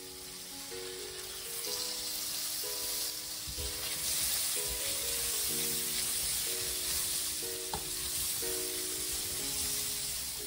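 Sliced carrots sizzling in hot oil in a stainless steel pot, swelling over the first couple of seconds as the lid comes off, while a silicone spatula stirs them. Background music plays underneath.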